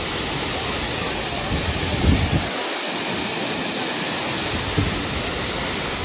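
A broad waterfall cascading over rock: a steady, dense rushing of falling water, with a couple of brief low thumps about two seconds in and near five seconds.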